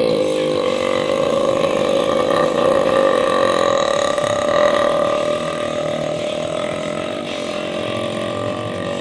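A man's long, drawn-out burp, held as one continuous belch at a steady pitch without a break, easing a little in its second half.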